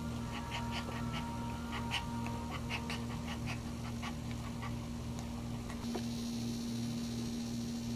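Heavily pregnant small dog panting in quick, short breaths, about three a second, for the first few seconds, then quieter. A steady low hum runs underneath.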